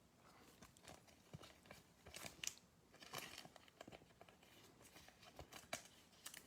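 Faint rustling, crinkling and soft clicks of trading cards and foil pack wrappers being handled, with a short cluster of crinkles about two and a half seconds in.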